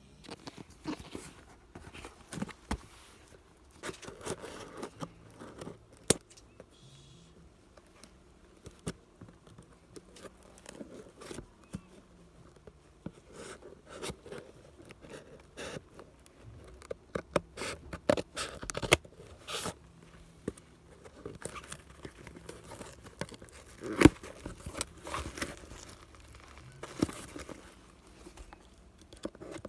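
Packaging being opened and handled: paper and plastic crinkling, tearing and scraping, with many irregular sharp clicks and taps as boxes and cosmetic containers are moved about.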